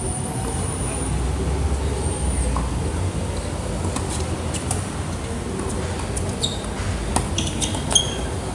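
A passing train rumbles steadily behind the courts, strongest in the first few seconds, then eases off. From about four seconds in, sharp knocks of a tennis ball on racket and court come through, the loudest near the end.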